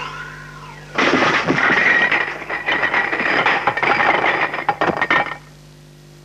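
Cartoon crash sound effect: a loud, dense clatter of many knocks and rattles, starting about a second in and stopping abruptly about four seconds later.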